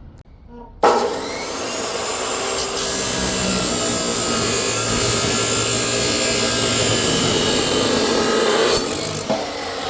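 A power tool cutting steel angle iron to length, a steady loud cutting noise that starts suddenly about a second in and stops near the end.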